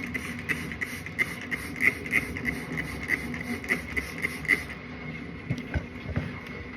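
Hands rubbing cleansing face balm over skin: a rhythmic swishing of about three to four strokes a second that stops about four and a half seconds in, followed by a few soft knocks.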